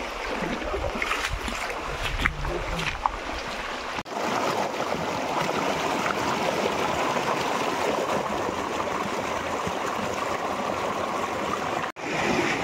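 Shallow stream water rushing and splashing over rocks. From about four seconds in, a loud, steady rush is picked up close to the water. Before that the flow is quieter, with a low rumble and a couple of sharp knocks.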